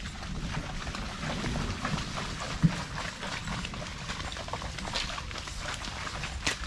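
Horse walking through mud and standing water on a rain-soaked dirt trail, its hooves squelching and splashing irregularly, with one sharper knock about two and a half seconds in.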